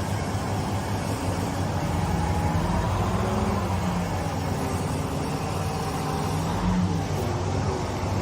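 A vehicle engine running steadily, its pitch wavering slightly.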